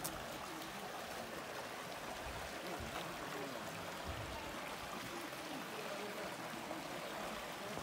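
Shallow stream of volcanic runoff running steadily over rocks.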